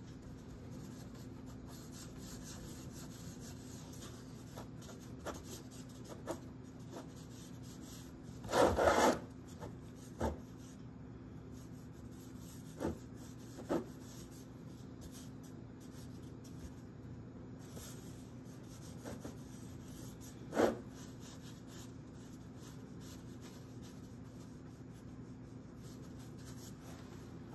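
Fingers rubbing and smoothing the outside of a coil-built clay pot, blending the coil seams. A faint steady rubbing with a few short louder scuffs, the loudest about nine seconds in.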